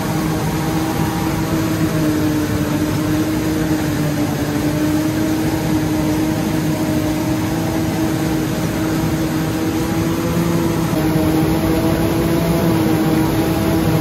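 Claas Jaguar 970 forage harvester running steadily under load as its corn header cuts and feeds standing corn: a loud, even mechanical drone with a steady whine over it.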